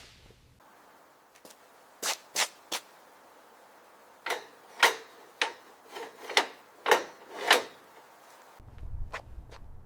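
A series of short, sharp scraping and knocking strokes from hand-tool work: three quick ones about two seconds in, then a run of about seven louder ones between four and seven and a half seconds.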